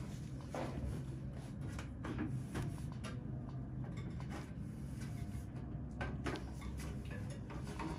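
Steady low room hum with scattered soft clicks and knocks.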